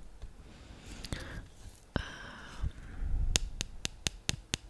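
Close-miked ASMR tapping: a quick, even run of sharp taps, about four or five a second, starting a little past halfway, after a few softer sounds.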